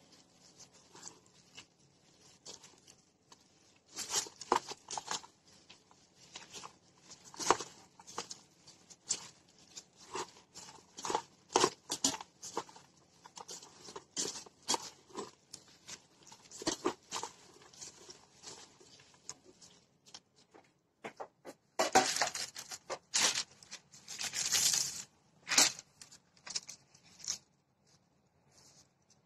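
Disposable plastic food glove crinkling and rustling as a hand mixes and presses sticky glutinous rice with seaweed flakes, in irregular soft crackles and taps. A longer, louder stretch of rustling comes about three-quarters of the way through.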